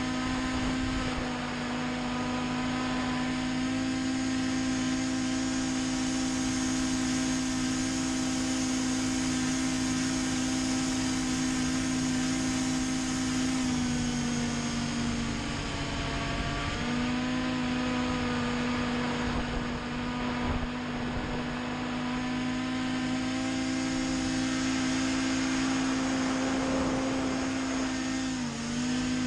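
Racing hovercraft's engine and fan running hard at high, steady revs, heard onboard. The pitch eases down for a couple of seconds about halfway through, then climbs back, and dips briefly again near the end.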